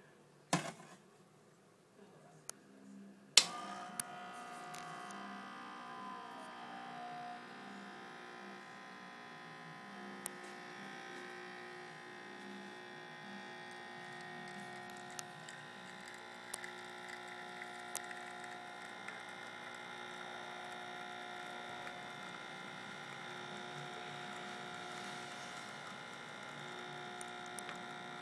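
Illy FrancisFrancis! X1 espresso machine: a sharp switch click about three seconds in, then its pump hums steadily while brewing, with a few light ticks over the hum.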